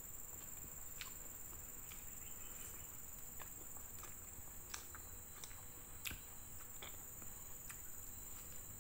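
Faint eating sounds of a person eating fried fish by hand: scattered soft clicks and smacks of chewing and fingers on food, about a dozen over several seconds, over a steady high-pitched drone.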